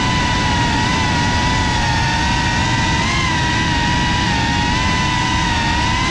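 FPV quadcopter's brushless motors and propellers whining at a steady cruising pitch, wavering slightly as the throttle shifts, over a rushing noise of air.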